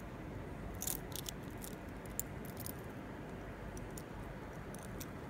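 Small clicks and light jingling of imitation-gold earrings and their bead and pearl hangings being handled by fingers, mostly in the first three seconds, over a steady low hiss.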